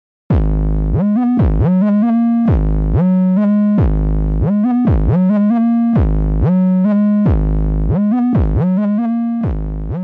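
Electronic intro music: a synthesizer phrase over deep bass notes that swoop down and back up in pitch, repeating about once a second.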